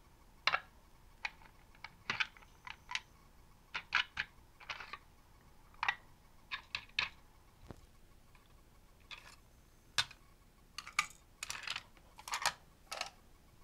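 Hollow plastic nesting toy vehicles clicking and knocking against each other as they are pulled apart and set down, irregular short clicks with a few brief scrapes.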